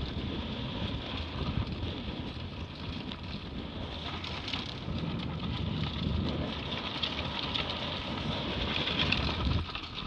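Wind buffeting the microphone and water rushing past the hull of a Hobie 16 catamaran under sail, a steady noisy rush with a low rumble and a hiss. The low rumble drops off suddenly near the end.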